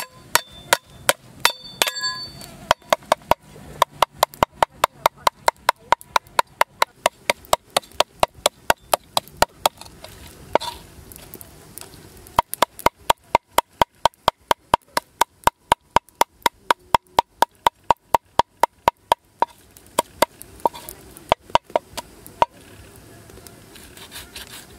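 A cleaver striking a round wooden chopping block in rapid, even strokes, about four a second, as it cuts into a snake. The strokes come in two long runs with a short pause between them, and a few single strikes near the start and end.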